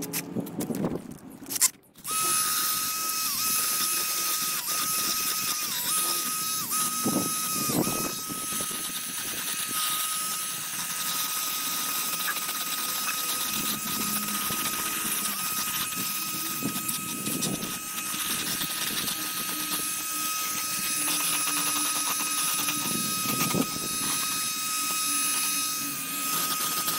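Small handheld power tool, such as a rotary tool or drill, running steadily with a high-pitched whine. It starts about two seconds in and its pitch sags slightly now and then.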